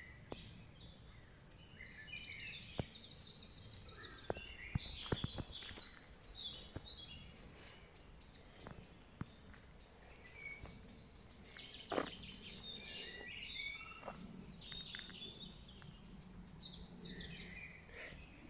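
Several songbirds singing and chirping at once, short overlapping phrases and trills, with a few scattered sharp clicks, the loudest about two-thirds of the way through.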